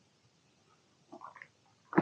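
Dead silence for about a second, then a faint, brief sound and a sudden louder sound at the very end.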